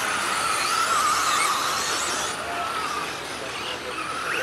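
Electric RC stadium trucks with 13.5-turn brushless motors racing past, their motors and gears whining with a wavering pitch that rises and falls with the throttle. The whine fades about three seconds in and picks up again near the end.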